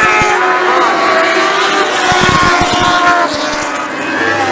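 Several lightning sprint car engines running at high revs together, their pitches rising and falling as the cars race past, with irregular low thumps.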